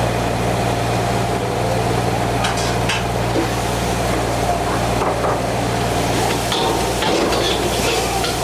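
Metal spatula scraping and knocking against a wok during stir-frying, over a steady low hum, with sharp clanks a few times a second near the middle and end.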